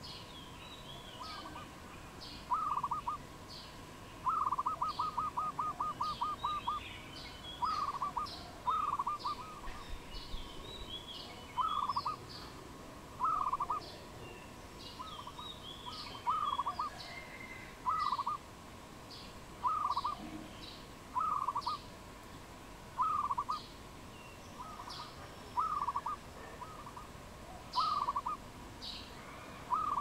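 A dove cooing in short phrases of a few notes that repeat about every second and a half, with one long, rapid run of about a dozen notes about four seconds in. Smaller birds chirp at a higher pitch in the background.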